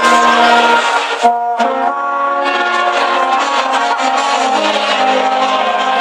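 Brass band playing live, the horns holding long notes over one another, with a short break about a second in before the tune carries on.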